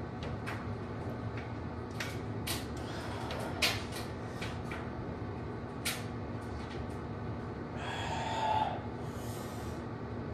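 Weight plates clinking and clicking on a loaded curl bar as it is lifted, several light metallic clicks, the loudest about three and a half seconds in. Two short hard breaths follow near the end, over a steady low hum.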